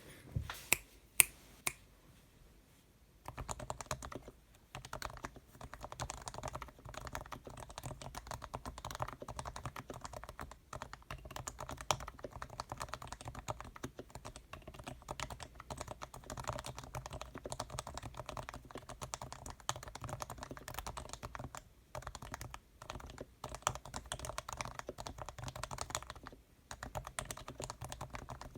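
Fast continuous typing on a Leopold FC660C keyboard with Topre electrostatic capacitive switches, their sliders and springs lubed with Krytox 105 and sound-dampening foam inside the case. A few sharp clicks come in the first two seconds, and the typing starts about three seconds in, with a couple of short pauses.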